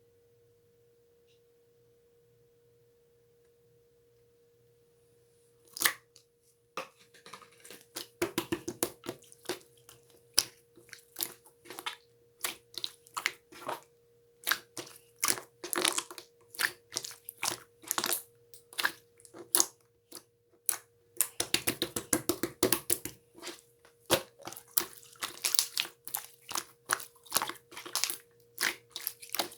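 Slime being squeezed and poked by hand, giving quick runs of sharp clicks, crackles and small pops. The first six seconds or so are near silence with only a faint steady hum before the clicking begins.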